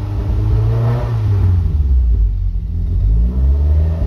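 2.5-litre four-cylinder Ford Duratec with individual throttle bodies, revved off idle to around 3,000 rpm. The note rises during the first second, drops back, then climbs again near the end. The revs are held up so the variable cam timing starts advancing.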